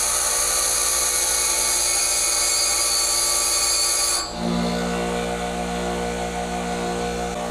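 Bench grinder wheel being dressed with a star-wheel dresser: a steady, loud, high hissing grind that cuts off abruptly a little over four seconds in, leaving the grinder running with a steady low hum.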